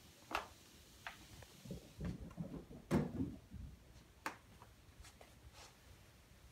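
Scattered light clicks and soft knocks of handling and movement on a hardwood floor, with a louder, duller thump about three seconds in.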